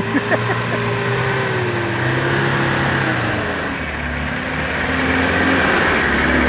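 A 4x4's engine running under throttle, its pitch falling slowly over a few seconds and then holding lower. A few short knocks come near the start.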